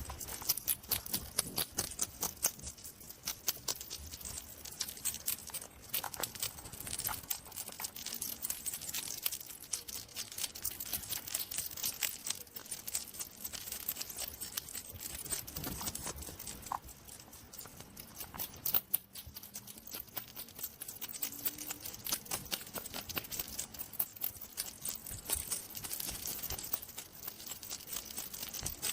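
A hedgehog rustling and crunching: a dense, irregular run of small crackles and clicks.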